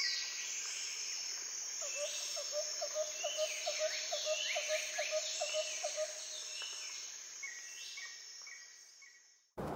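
Birds calling over a steady high insect drone: several falling whistled calls, and a quick run of short low notes, about three or four a second, from about two to six seconds in. The sound cuts off suddenly near the end.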